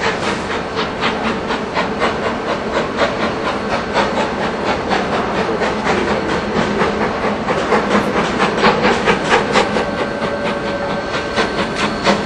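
1943 Baldwin-built AC16 steam locomotive arriving at low speed: steam hissing and a run of clicks as its wheels cross the points, getting a little louder as it draws near.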